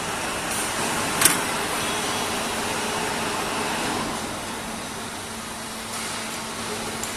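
Steady workshop machinery noise with a sharp click about a second in; a low steady hum joins about six seconds in.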